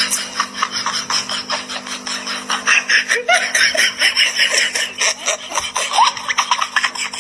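Rapid, rhythmic rasping strokes, several a second, over a steady low hum, with a short rising squeak about three seconds in and again about six seconds in.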